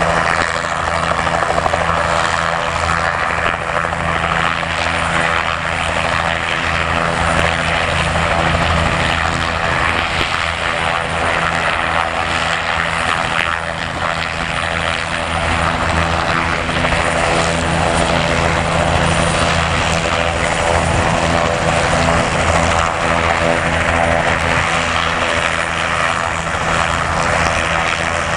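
A group of light helicopters, Robinson R22 and R44s with piston engines and a turbine Bell 505, flying low in formation. The rotor beat and engine drone are steady and continuous.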